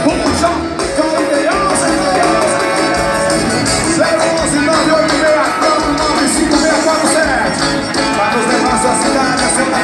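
Live band music, an instrumental passage: sustained pitched melody lines, one note held for several seconds, over a steady beat of drums and cymbals.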